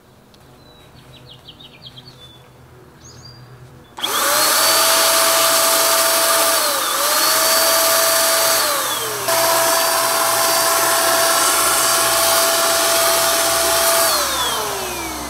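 Handheld electric HVLP paint sprayer spraying paint: after a few light clicks, its motor starts about four seconds in with a rising whine and runs loud and steady. The pitch dips briefly twice as the trigger is eased and squeezed again, then winds down with a falling whine near the end.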